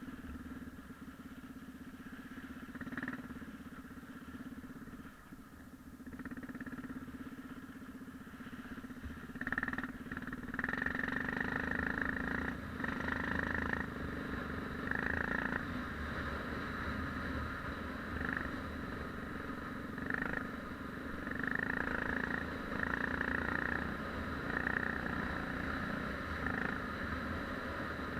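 Yamaha XT 600's single-cylinder four-stroke engine running while the bike is ridden off-road. It gets louder about ten seconds in, then swells and eases repeatedly as the throttle opens and closes.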